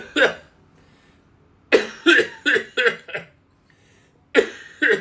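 Staged coughing in fits: a cough or two at the start, a run of about six quick coughs a couple of seconds in, and two more near the end.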